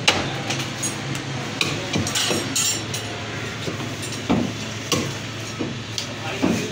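Meat cleavers chopping goat meat and bone on wooden chopping blocks: a sharp chop right at the start, then irregular chops every second or so, some in quick clusters.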